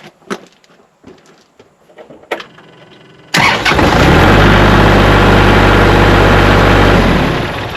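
Kubota L3301 tractor's three-cylinder diesel engine cranking and catching about three seconds in, then running steadily: it starts now that the corroded battery terminals have been cleaned. The sound fades near the end.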